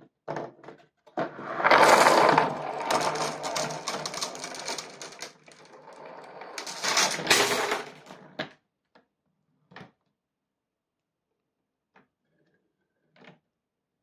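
Dozens of glass marbles pouring out of a tray and rattling down cardboard chutes in a dense clatter lasting about seven seconds, louder twice. It thins to a few separate clicks and knocks near the end, as a single marble rolls on.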